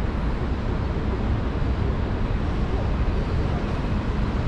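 Steady city road traffic noise from cars and trucks, with a deep rumble.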